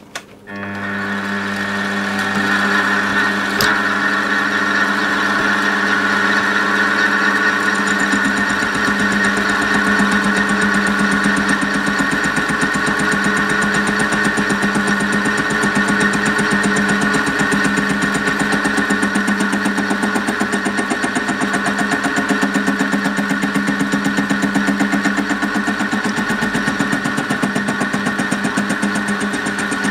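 Metal lathe starting up just after the start and running steadily, with a steady motor and gear whine, while the tool takes a light skimming cut on an out-of-round home-cast aluminium cylinder. From about eight seconds in a fast, even ticking runs under the whine, typical of an interrupted cut on the uneven casting.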